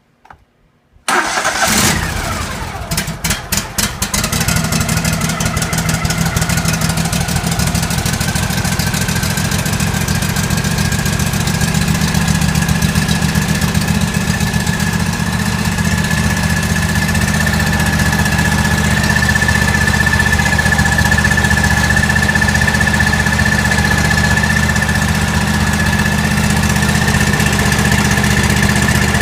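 John Deere L130 lawn tractor engine cranking about a second in, catching within a couple of seconds, then running steadily with a high whine over it. It starts now that the blown 20 amp fuse has been replaced and the battery boosted.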